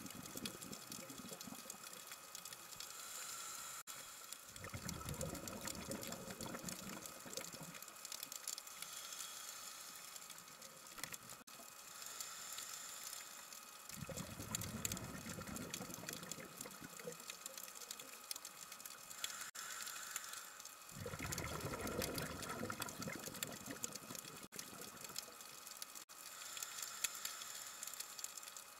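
Underwater reef ambience: a steady hiss with fine crackling, and low rushing surges of water, each a few seconds long, coming back about every seven or eight seconds.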